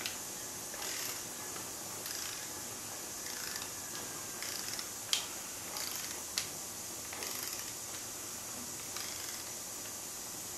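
Torque wrench ratcheting as it tightens the hub nut on a permanent-magnet alternator's shaft: a few scattered sharp clicks, the two loudest about five and six seconds in, over a low steady hiss.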